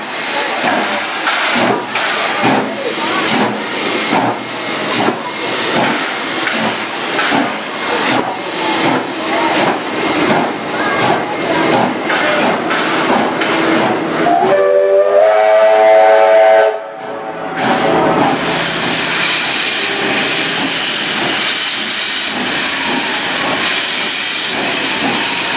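C36 class steam locomotive 3642 pulling out, its exhaust chuffing at about two beats a second with steam hissing. A little past halfway its steam whistle blows for about two seconds and cuts off sharply, and a steady hiss of steam follows.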